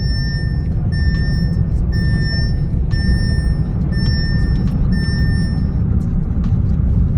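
A car's warning chime beeping six times, one steady tone about once a second, then stopping, over steady low engine and road rumble inside the moving Audi.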